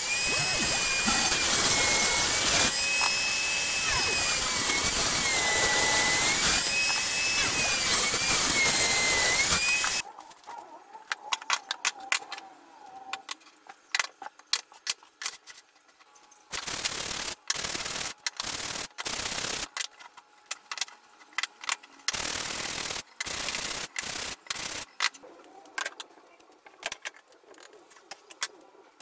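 Bench table saw running for the first ten seconds or so, a thin whine in it dipping and recovering; it cuts off suddenly. After that, hardwood strips are knocked and slid about on the saw's cast-iron table, with several short loud scrapes.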